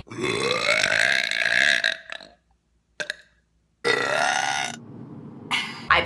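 A woman burping: one long, drawn-out burp of about two seconds, then after a short gap a second, shorter burp about four seconds in.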